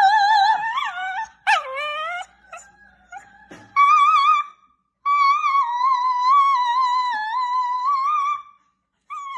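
A dog howling in a series of long, wavering, pitched howls with short breaks between them; the longest howl runs about three and a half seconds.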